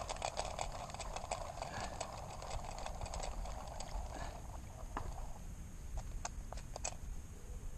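Sounds of a small boat on the water: a busy run of light clicks and knocks over a steady hiss, which stops about four and a half seconds in, leaving a few scattered clicks.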